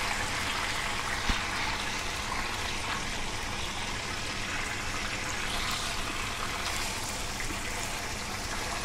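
Hot oil sizzling steadily around a whole chicken shallow-frying in a non-stick kadai, with one light knock about a second in.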